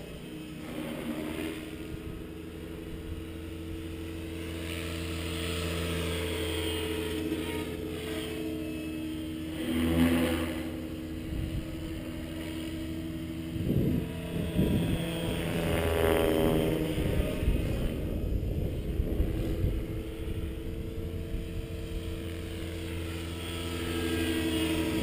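Electric Align T-Rex 550E radio-controlled helicopter in flight, its motor and rotors whining and buzzing steadily, with pitch and loudness rising and falling as it manoeuvres and passes. A loud whoosh comes about ten seconds in, and more around fourteen seconds.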